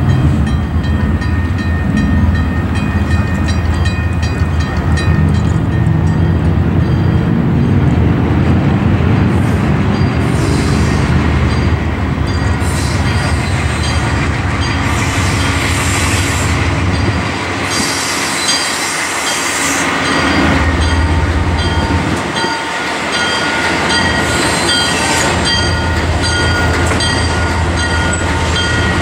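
Alco C-424 diesel locomotive's engine running as it hauls a passenger train slowly toward and past, a steady low drone throughout. A high squeal and hiss come and go several times in the second half.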